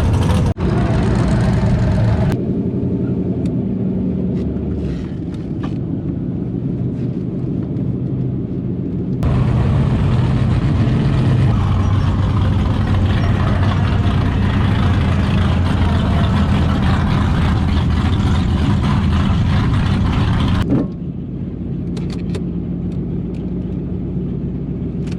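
Car engines running steadily at idle, heard across several abruptly cut clips; in one stretch in the middle a louder, noisier running sound covers the idle.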